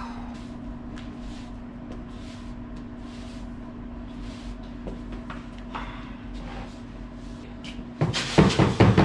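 Push broom sweeping debris across a coated concrete floor in short swishes, about one or two a second, over a steady hum. Near the end, a loud burst of knocking and clattering.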